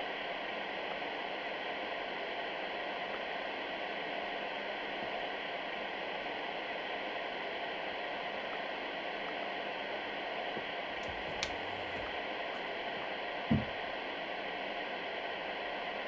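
White noise machine hissing steadily. A faint click comes a little past the middle, and a short, low sound rising in pitch about two-thirds of the way through.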